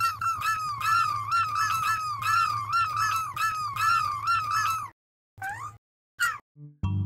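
A high, squeaky, warbling sound effect in quick bending syllables for about five seconds, followed by two short upward squeaks and a low note near the end.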